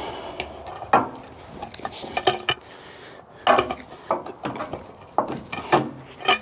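Metal clanks and knocks from a manual Wood-Mizer LX55 sawmill's bed, stops and clamp as a squared pine cant is shifted against the stops: about eight sharp hits, irregularly spaced, with some rattling between them.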